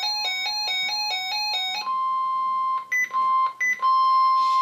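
An electronic chime tune stepping back and forth between notes, then the NOAA Weather Radio warning alarm tone: a steady high 1050 Hz beep starting about two seconds in, briefly broken twice by short higher blips. The alarm tone signals that a warning broadcast, here a severe thunderstorm warning, is about to follow.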